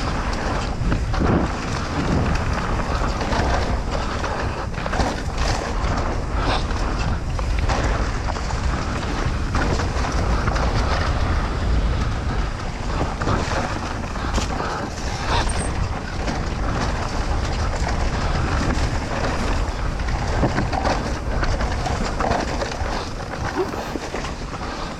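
Wind buffeting the microphone of a rider on a moving mountain bike, with tyre noise on the trail and frequent clicks and knocks from the bike rattling over bumps.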